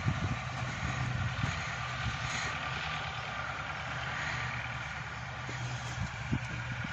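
Steady low hum of a vehicle engine idling, over even outdoor background noise.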